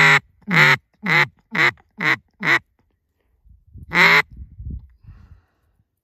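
Mallard duck call blown in a descending call: a long, loud hen quack and then five shorter quacks at about two a second, each quack falling in pitch, then one more single quack about four seconds in.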